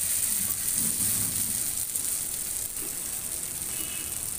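Bamboo-shoot vegetable mix sizzling in a black iron kadai with a steady high hiss as a flat spatula stirs it, the dish nearly done.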